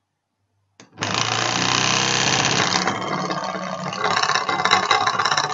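Mini pottery wheel's small electric motor starting up just after a click about a second in, then running with a loud, fast rattling buzz as the wheel vibrates. The rattle comes from the weight of the clay on the wheel head, which sets the little wheel shaking.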